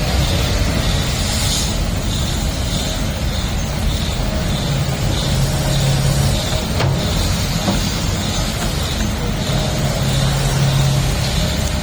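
Kobelco SK200 excavator's diesel engine running steadily with a low rumble, a pitched drone coming up twice for a second or two as it works, and a single sharp knock about seven seconds in.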